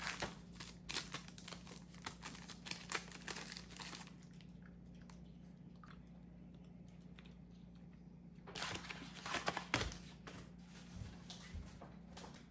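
Paper crinkling and rustling in two spells of handling, through the first few seconds and again about nine seconds in, as gifts are taken from a paper shopping bag and unwrapped.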